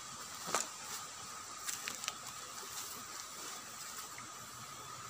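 Faint steady outdoor hiss with a few soft clicks and rustles, about half a second in and again around two seconds in.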